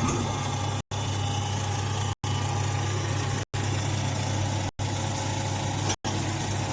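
Hydraulic rice straw baler's motor and pump running with a steady hum. The sound cuts out completely for an instant about every second and a quarter.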